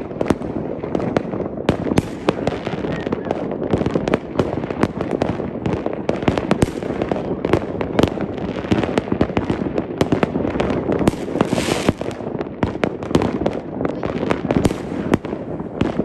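Fireworks and firecrackers going off in a continuous barrage: many sharp bangs and crackles, several a second, with a short hiss about two-thirds of the way through.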